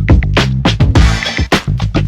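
Background music with a funky electronic beat, punchy drum hits and a bass line.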